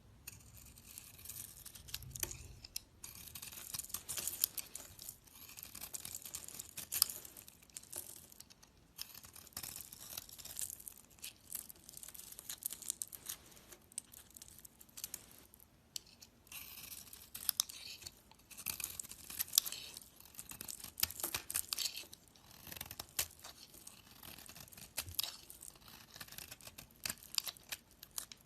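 A knife carving and scraping a bar of soap: crisp, crackly cuts in runs of a few seconds with short pauses between.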